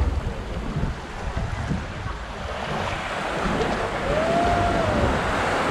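Small waves breaking and washing up the sand, swelling about three seconds in, with wind buffeting the microphone as a low rumble.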